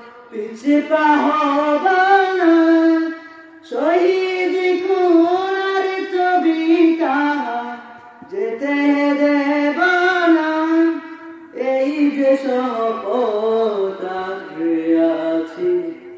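A boy singing a Bengali Islamic song (gojol) unaccompanied, in long melismatic phrases with short breath pauses about three and a half, eight and eleven and a half seconds in.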